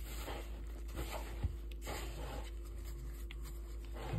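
Hand kneading a damp flour and cheese-powder dough in a bowl: soft, irregular rubbing and squishing, with one sharp tap about a second and a half in.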